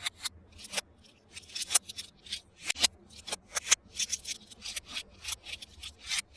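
Hands handling toy packaging during unboxing: short, irregular crinkling and scraping strokes, a few each second.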